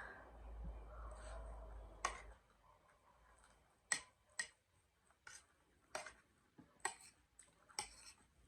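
Close-miked mukbang eating of chatpate: sharp, wet mouth clicks and smacks at uneven intervals, roughly one a second, after a couple of seconds of soft rustling over a low hum.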